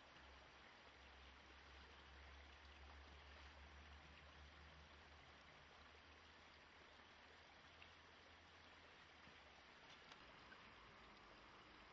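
Near silence: a faint, even hiss with a low rumble that fades about nine seconds in.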